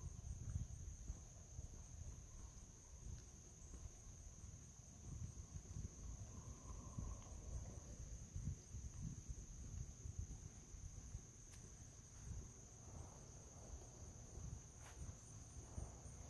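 Crickets trilling in one steady, unbroken high tone over a low, uneven rumble.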